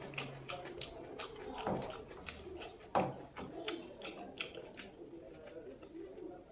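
Eating by hand: fingers squishing and mixing rice and curry on a plate, and wet chewing with many short mouth clicks, one sharper smack about three seconds in.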